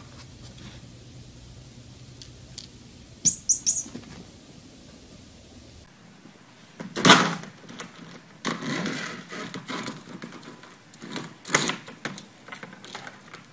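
A cat playing with toys: three quick high squeaks, then an irregular run of knocks and thumps on a hard surface, the loudest about halfway through.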